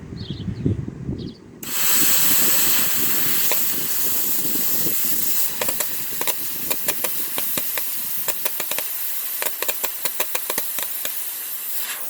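Plasma cutter torch firing: a loud steady hiss of air starts suddenly about one and a half seconds in, and from about halfway it is broken by rapid irregular crackling clicks of the arc. The cutter is not cutting properly, which the user has put down to a bad ground.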